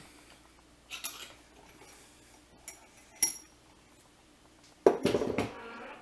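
Metal tools and a bench vise being handled on a workbench: a few light metallic clinks, one with a brief high ring, then a louder clattering knock about five seconds in.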